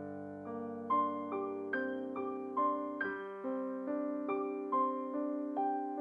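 Background music: a piano melody, two or three notes a second, each note struck and then fading.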